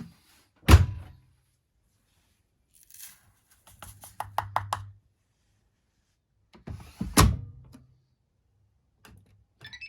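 Thuds and clicks from loading a Bosch Series 6 i-DOS front-loading washing machine. Two heavy thunks come about six seconds apart, with a quick run of five or six light clicks between them.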